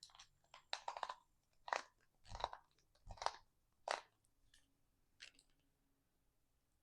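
Short, irregular crunching and creaking, about eight in the first five seconds, as a power cable is forced deeper into a plastic cable clamp.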